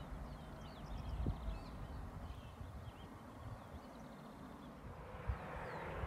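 Wind rumbling on the microphone, with a few faint, high, chirping bird calls in the first second or so and again near the end. The wind hiss grows a little near the end.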